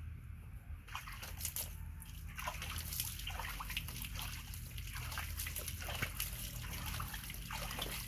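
Water scooped by hand from a plastic tub and splashed over a monkey being bathed, with repeated irregular splashes and trickling that start about a second in.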